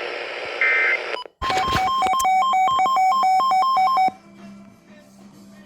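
Hissy radio static with a short beep, cut off abruptly about a second in. An electronic alert tone follows, rapidly alternating between two pitches for almost three seconds, then stops, leaving a faint low hum.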